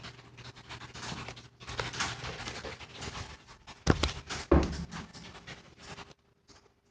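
Rapid panting breaths close to the microphone, with two sharp knocks about four seconds in, half a second apart.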